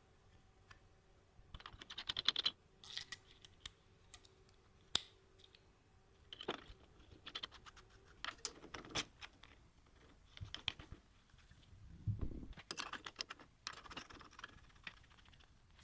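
Small metal parts and hand tools being handled while cutting tools are fitted into a lathe turret: scattered light clicks, taps and clinks in short clusters, a few with a brief metallic ring.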